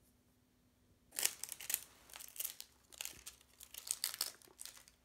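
Plastic packaging crinkling and crackling in quick irregular handling noises as a small toy capsule is picked open by hand, starting about a second in.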